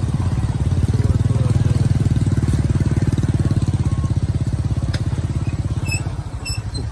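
Vehicle engines running steadily with a fast, even pulse as a loaded sugarcane truck and following motorcycles move slowly along a dirt track. A few short high chirps come near the end.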